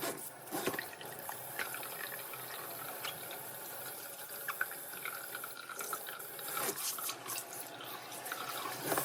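Kitchen tap running water into a sink, with a few light knocks.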